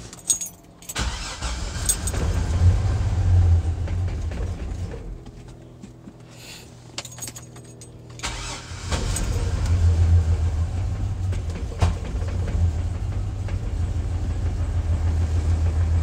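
Chevrolet Silverado engine cranked and started for the first time after a fuel injector replacement, running rich on the brake cleaner used to clean the intake. It runs for a few seconds, goes quieter in the middle, then runs on steadily from about nine seconds in. The ignition keys jingle at the start.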